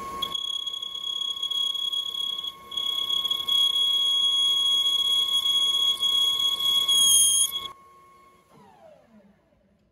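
Metal lathe turning a steel shaft while a tool cuts in the end of its bore, giving a steady high-pitched squeal over the lathe's running whine, with a short break about two and a half seconds in. The cutting stops suddenly near the end, and the lathe spindle winds down with a falling whine.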